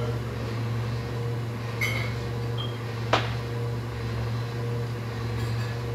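Garbage truck engine running steadily, a constant low hum with a steady higher tone over it. A single sharp knock sounds about three seconds in.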